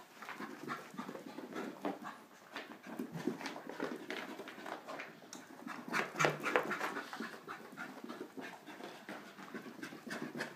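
A corgi puppy panting and scrabbling over carpet during frantic zoomies, with a quick run of paw scuffs and body thumps, the loudest about six seconds in.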